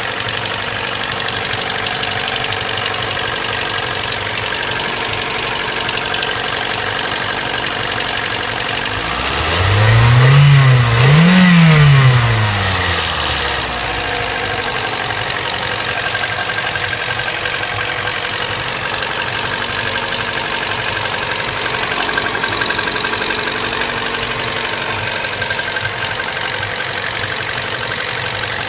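Toyota 1ZZ-FE 1.8-litre four-cylinder engine idling steadily, blipped up and back down twice in quick succession about ten seconds in, then settling back to idle. It is making an abnormal noise that the owner puts down to worn bearings.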